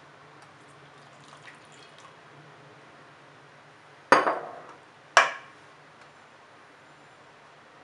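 Milk poured into crepe batter in a stainless steel mixing bowl, a faint trickle. About four seconds in come two sharp clinks a second apart, the loudest sounds, each ringing briefly.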